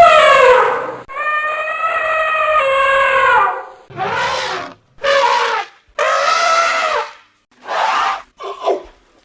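Elephant trumpeting: a long call falling in pitch, then a second long trumpet of a few seconds, followed by a run of shorter trumpet blasts with short gaps between them.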